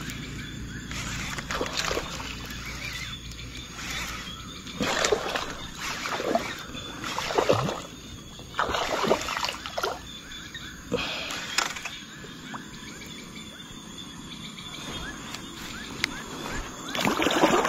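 Baitcasting reel winding in line while a topwater lure is jerked across the water, heard as a string of short irregular bursts, several of them dropping quickly in pitch.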